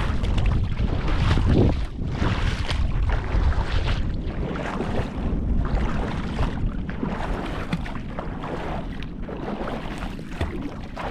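Wind rumbling on the microphone over the splash and swish of legs wading through shallow sea water, rising in surges about once a second with each step.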